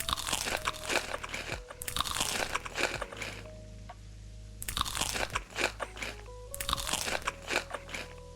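Crunching of crisp food being bitten and chewed close to the microphone, in several bursts of about a second each with short pauses between.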